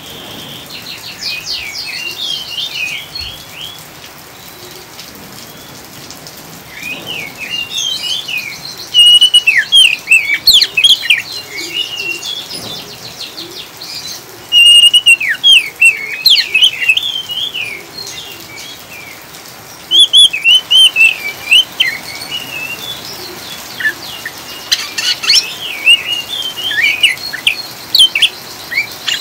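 Oriental magpie-robin (kacer) singing in loud bursts of rapid, high chattering and twittering phrases, the 'ngriwik' style of song, with short quieter gaps between bursts. Steady rain hiss runs underneath.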